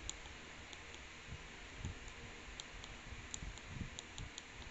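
Faint, irregular small clicks with a few soft low thumps: buttons being pressed and the equipment handled while stepping through a TV mainboard tester's on-screen menu.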